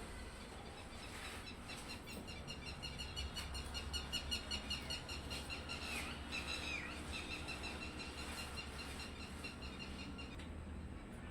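A small bird chirping in quick repeated notes, several a second, with a couple of downward-sliding calls midway, over a low steady hum.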